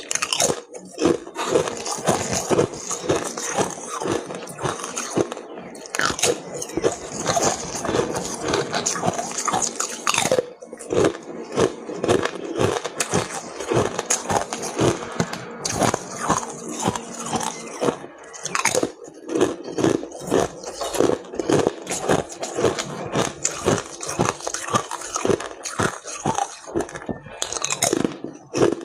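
Ice being bitten and chewed: rapid, irregular crunching with a few brief pauses.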